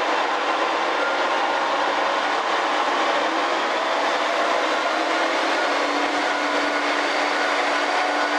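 Kiha 47 diesel railcar on the move: steady engine and rail noise, with the diesel's note slowly rising in pitch.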